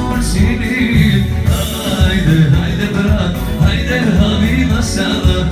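Live band playing loud Albanian folk dance music.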